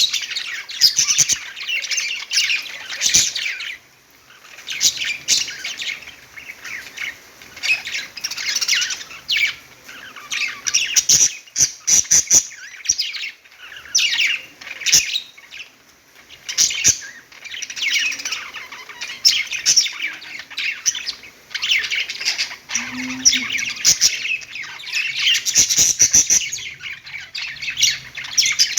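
Several pet budgerigars chirping and warbling in continuous, busy chatter of short high chirps, with a brief lull about four seconds in and a few sharp clicks.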